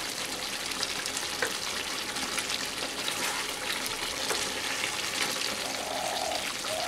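Chicken pieces sizzling and bubbling in a kadai in the water they have released, with a steady hiss and fine crackling. In the middle a spatula stirs the pieces around, adding a few scrapes and clicks.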